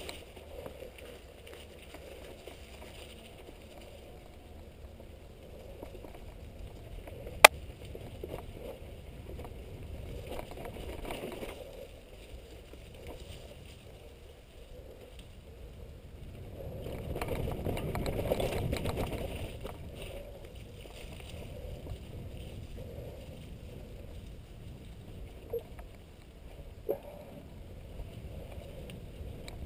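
Mountain bike riding noise: tyres rolling over a snow-dusted dirt singletrack with a steady rumble, growing louder for a few seconds past the middle. One sharp click about seven seconds in and two smaller clicks near the end.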